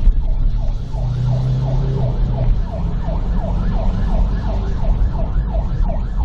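Emergency vehicle siren in a fast yelp, its pitch sweeping up and down a little over twice a second, heard inside a moving car over engine and road rumble.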